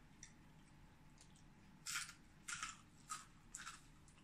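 Crispy pata (deep-fried pork knuckle) skin crunching as it is torn apart by hand and eaten: four or five short, sharp crackles in quick succession from about two seconds in, over a faint steady background.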